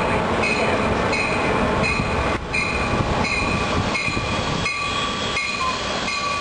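Amtrak passenger train rolling slowly into the station, cab car first, with a steady rumble and regular clacks of wheels over rail joints about twice a second, and a thin high ringing over the top.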